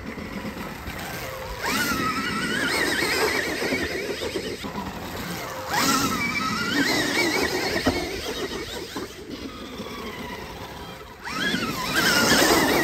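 Stark Varg electric dirt bike's motor whining, its pitch rising and falling with the throttle three times.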